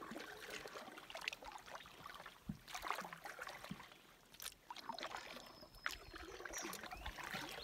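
Canoe paddle strokes: soft, repeated splashes as the blade dips and pulls through calm water, with dripping and trickling between strokes and a few light knocks.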